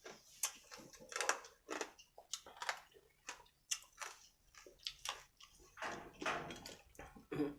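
Close-up mouth sounds of a person eating: wet chewing and lip smacks with irregular clicks and crunches.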